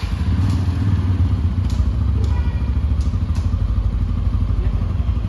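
Bajaj Pulsar N160 motorcycle's single-cylinder engine idling steadily with a low, even throb, cutting in abruptly at the start, with a few light clicks over it.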